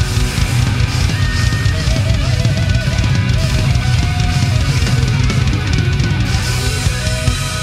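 Rock band playing an instrumental passage without vocals: busy drum kit to the fore, with electric guitar lines that waver and bend in pitch.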